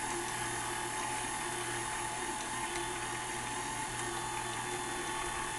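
KitchenAid Artisan stand mixer running at a steady pitch as its beater mixes cooked potatoes. The motor holds its speed under the load without slowing.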